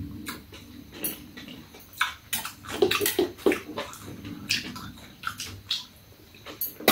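Eating sounds: wet chewing and slurping, with scattered light clicks of metal chopsticks and a spoon against bowls and a metal tray.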